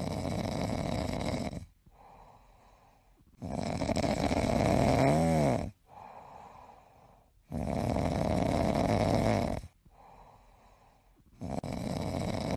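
An animal snoring: long, noisy breaths of about two seconds each, three of them about four seconds apart, with a fourth starting near the end.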